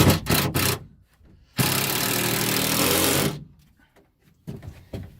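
Power drill driving a screw in one steady run of about two seconds, after a few knocks from handling the wood.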